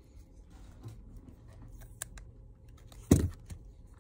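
Light clicks and taps of a disassembled smartphone being handled, with one loud knock a little after three seconds in as the phone is set down on the repair mat.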